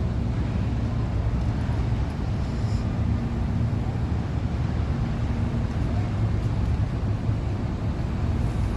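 Cold-storage refrigeration compressor running steadily: a loud, even low hum with a faint steady tone above it.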